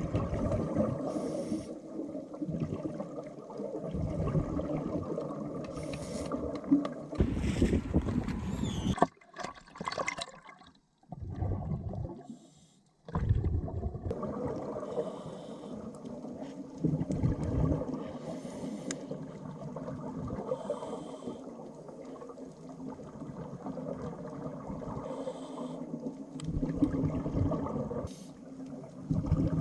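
Water sounds, sloshing and bubbling, over a steady low rumble. They are interrupted by a brief drop-out about nine seconds in.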